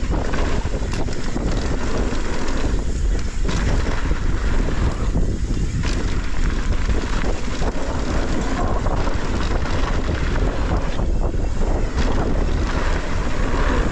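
Wind buffeting the microphone over the rolling noise of mountain bike tyres on a dirt trail during a fast descent, with scattered knocks and clatters from the bike over bumps.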